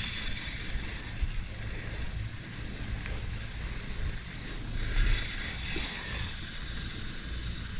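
Wind buffeting the microphone as an unsteady low rumble, over a steady high outdoor hiss.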